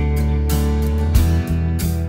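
Music: a song on guitar, chords struck every half second or so over held bass notes.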